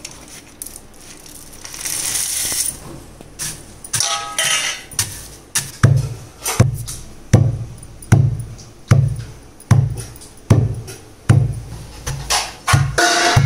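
Roasted, skinned peanuts rustle into a stone mortar about two seconds in. From about four seconds in, a wooden pestle pounds them in the mortar: a steady run of dull thuds, a little more than one a second.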